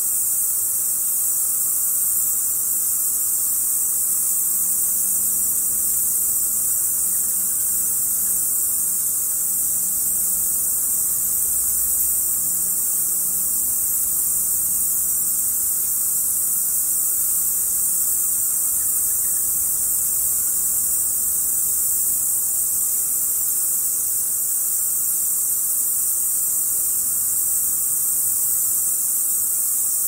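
A roost of insectivorous bats in a cave: a very constant, dense mass of high-pitched calls and fluttering wings.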